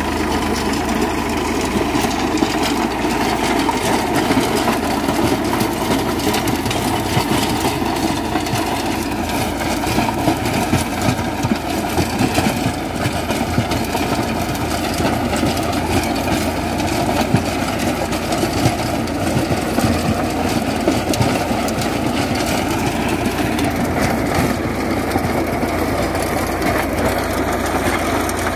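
Farmtrac 6045 45 hp diesel tractor engine running steadily under load, driving a rear rotary tiller that churns and crumbles the soil with a continuous gritty rumble.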